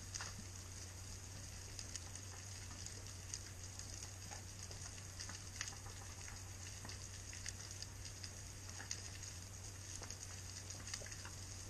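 Underwater reef crackle from snapping shrimp: a steady fizz of many small scattered clicks, with a steady low hum beneath it.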